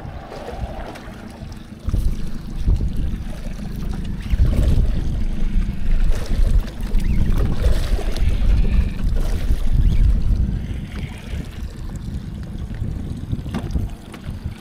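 Wind buffeting the microphone in gusts, a low rumble that swells and fades.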